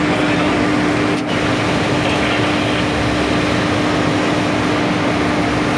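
Steady drone of an electric locomotive's onboard machinery heard inside the driver's cab, with a constant low hum running through it.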